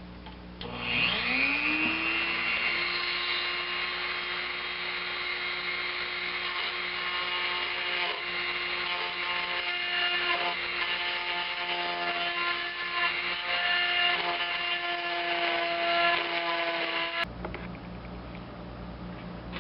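Dremel rotary tool with a small burr spinning up about a second in and running at a steady high whine, grinding old copper wire out of the center of a kill-switch contact, then cutting off abruptly near the end.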